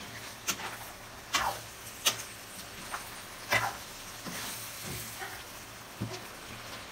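Metal ladle knocking and scraping against a wok as stir-fried chop suey vegetables are tossed, with sharp clanks about once a second over a low steady hum.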